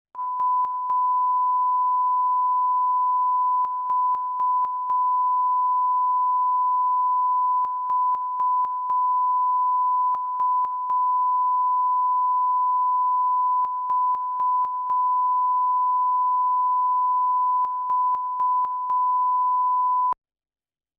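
Broadcast line-up tone: a steady 1 kHz test tone played with colour bars at the head of a programme tape, dipping briefly in short clusters every few seconds. It cuts off abruptly near the end.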